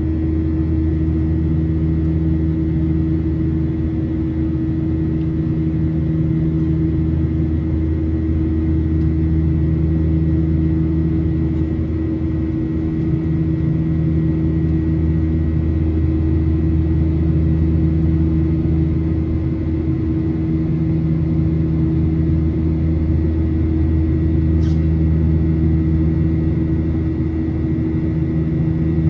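Cabin noise inside a Boeing 737-900ER: its CFM56-7B engines and the airflow make a steady drone with several even hums over a low rumble.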